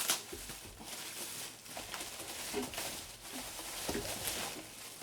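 Rustling and handling of packaging with scattered light clicks and knocks as filter parts are unpacked.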